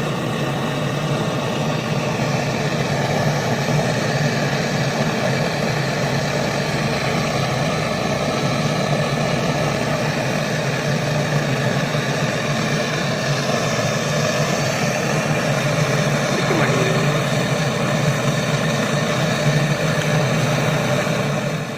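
A motor-driven pump runs steadily with a strong low hum, then is switched off abruptly near the end.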